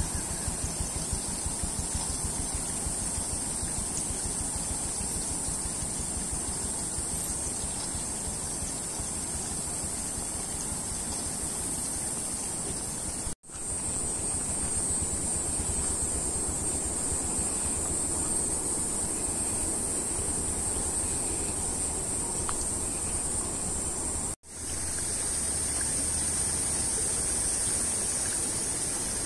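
Steady jungle ambience: an even rushing noise under a constant high-pitched hiss. The sound cuts out abruptly twice, about 13 and 24 seconds in.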